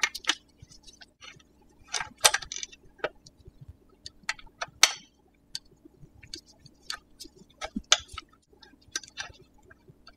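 Irregular light metallic clicks and clinks of an Allen wrench working on a hydraulic disc brake caliper's mounting bolts as they are loosened and the caliper is taken off the fork.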